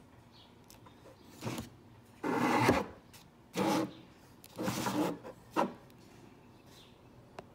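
Rubbing and scraping handling noise in about five short bursts over four seconds, the loudest about two seconds in, followed by a small click near the end.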